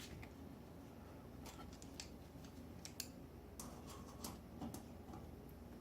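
Faint, irregular clicks and taps of a screwdriver working at a screw in the washing machine's metal panel, the loudest about three seconds in.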